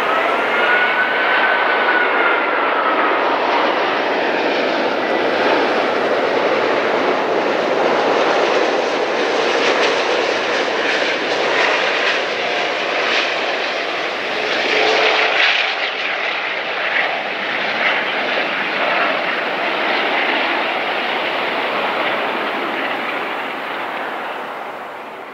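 Airbus A380 airliner's four jet engines on landing approach: a loud, steady rush of jet noise with a high whine that rises and then falls in pitch in the first few seconds. The sound fades near the end as the aircraft settles onto the runway.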